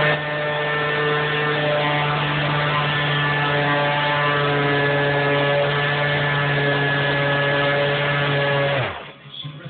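Electric sander running steadily at full speed on a piece of wood, its motor giving a constant hum over the noise of the abrasive. About nine seconds in it is switched off, and the motor's pitch falls away quickly as it winds down.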